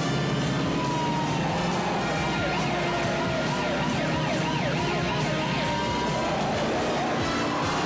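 A siren sweeping up and down, with quicker sweeps in the middle, over the steady sound of a speeding car, from a TV car-chase scene.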